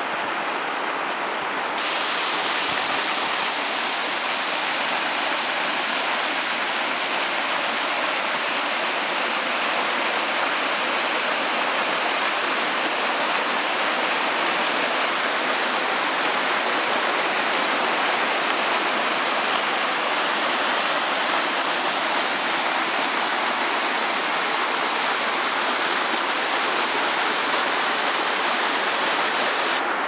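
Water rushing steadily down the rock ledges of a small woodland waterfall, an even, unbroken roar that grows brighter and hissier about two seconds in.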